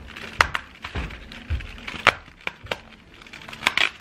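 Fingers tapping and pressing at the perforated cardboard doors of a Dairy Milk chocolate advent calendar: a string of irregular sharp taps and small cardboard clicks, with a few dull knocks.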